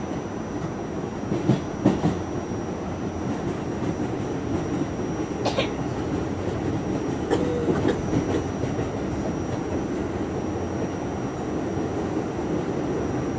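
R68A subway car running along the track: a steady low rumble with the clack of wheels over rail joints, two sharp knocks about a second and a half in and a brief squeal around the middle.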